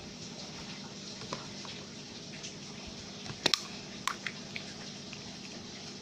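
Steady hiss of tropical rain, with a few sharp clicks over it: a loud pair about three and a half seconds in and a few lighter ones soon after.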